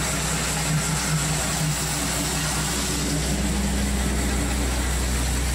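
Tractor engine driving a hammer-mill feed grinder-mixer through its PTO, running at a steady loud hum; a slightly higher hum joins about three seconds in.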